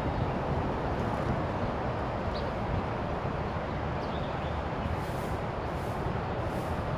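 Steady low outdoor background rumble, with a few faint short rustles in the second half.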